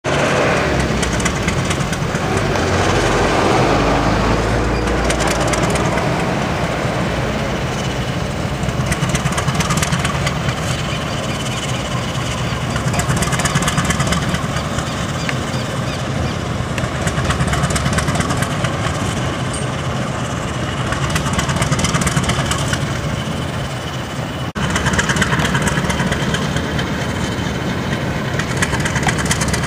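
GE U12B diesel-electric locomotive with a GE 7FDL-8 V8 diesel engine, running steadily as it moves along the track. The sound drops out for a moment about 24 seconds in.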